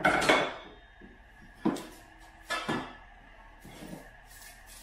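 Metal table legs clanking and knocking against one another and the workbench as they are handled: a handful of separate knocks, the loudest at the very start.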